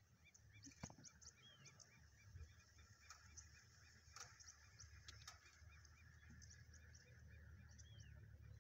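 Near silence: faint high chirps repeating evenly about three times a second over a low rumble, with a couple of short curved calls.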